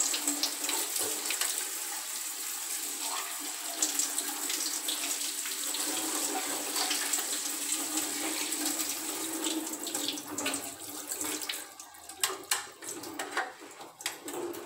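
Tap water running and splashing over the plastic motor head of a SunSun HW-403A canister filter as it is rinsed. About twelve seconds in the flow stops, and a few sharp knocks follow as the head is handled.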